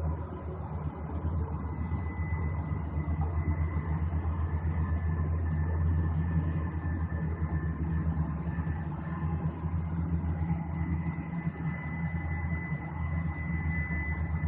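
A steady, low-pitched droning rumble with a faint high whine held above it, unchanging throughout. The uploader counts it among the strange sounds in the sky and has no idea what makes it.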